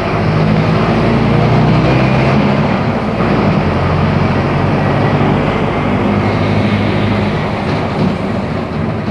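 Mercedes-Benz OF-1418 bus diesel engine running under way, loud and steady, its engine note shifting in pitch a few times as it changes speed.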